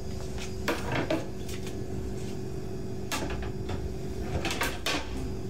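Household clatter: a handful of short knocks and clinks in two groups, about a second in and again from about three to five seconds in, over a faint steady hum.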